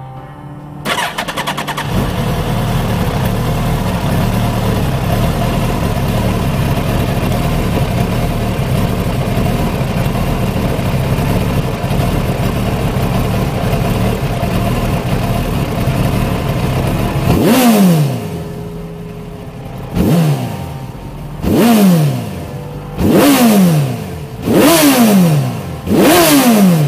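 Suzuki GSX1300R Hayabusa inline-four engine starting about a second in and settling into a steady idle. In the last ten seconds it is revved in about six sharp throttle blips, each dropping back to idle, coming closer together near the end.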